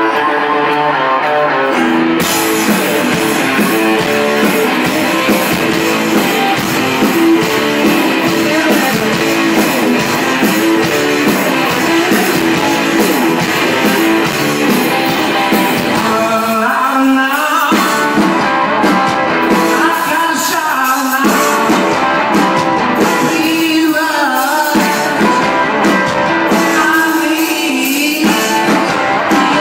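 Live blues-rock from a two-piece band, electric guitar and drum kit, with a man singing. Guitar alone at first, then the drums and cymbals crash in about two seconds in and the band plays on at full volume, dropping back to lighter guitar riffs for a few short moments in the second half.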